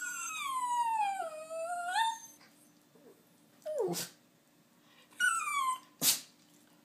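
A shorkie (Shih Tzu–Yorkshire terrier mix) whining and sneezing: one long whine that falls in pitch and rises again, then two short, sharp sneezes about two seconds apart, each right after a brief whine.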